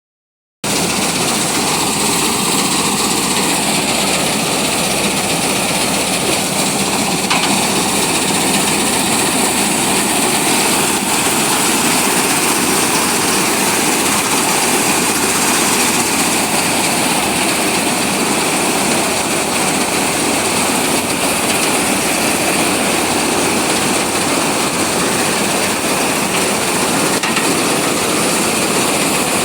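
Combine harvester running steadily while cutting wheat, a loud, even mechanical din that starts abruptly about half a second in.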